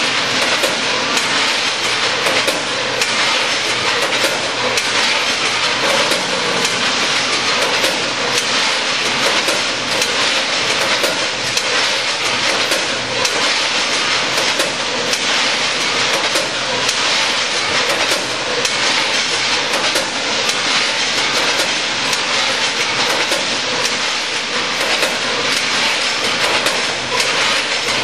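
Automatic packaging line of a 14-head combination weigher and vertical bagging machine running: a loud, steady mechanical clatter with frequent sharp clicks and knocks.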